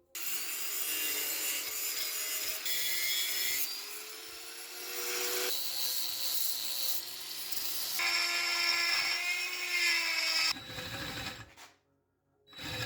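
Power tool grinding and sanding a rough cast-aluminum shifter knob to clean it up, a scraping noise with a motor whine that shifts in pitch under load. The sound changes abruptly several times and stops about a second before the end.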